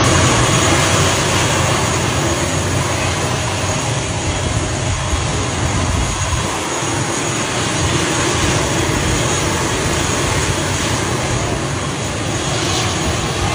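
Engine of an ATR 72 turboprop airliner running steadily on the ground: a loud, even rush with a constant high whine over a low hum.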